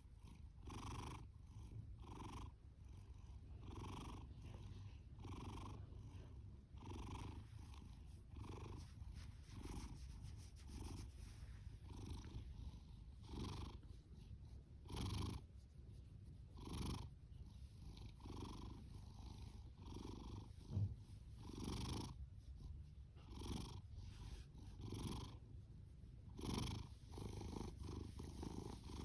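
Domestic cat purring: a steady low rumble that swells with each breath, about once every second and a half, with a few breaths stronger and rougher than the rest.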